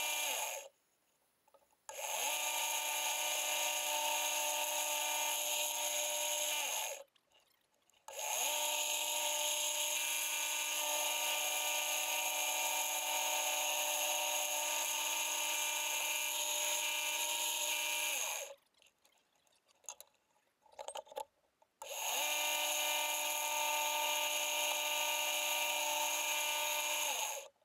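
Wood lathe motor running with a steady whine, stopped and restarted three times. Its pitch rises as it spins up and falls as it runs down, and a few faint clicks come in the pause after the longest run.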